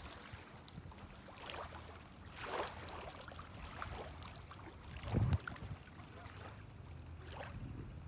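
Lakeshore ambience: small waves lapping and wind on the microphone over a low steady hum, with a dull thump about five seconds in.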